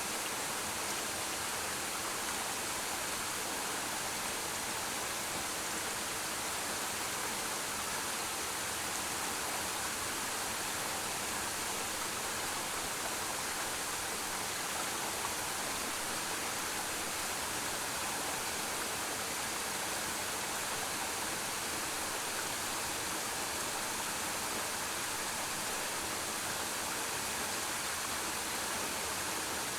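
Waterfall pouring steadily: a constant hiss of falling water, even in level throughout, with no breaks or separate events.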